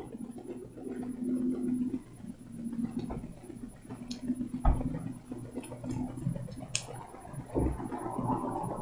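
Handling noise from hands tying a knot in beading string close to the microphone: low rustling and rubbing with a few small clicks, and two dull thumps, one about halfway through and one near the end.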